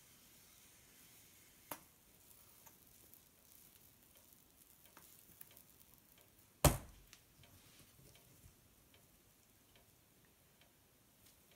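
Faint sizzling of pancake batter cooking on a hot plate, with small ticks. A sharp click comes near two seconds in, and a single loud knock about halfway through.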